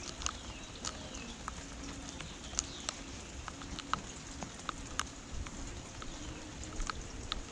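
Steady rain, with drops striking close by in irregular sharp taps, and a few faint bird chirps.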